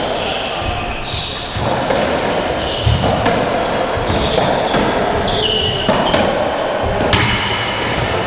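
Racketball rally on a squash court: the ball cracking off strings, front wall and floor about once a second, the hits echoing in the enclosed court, with short high squeaks between them.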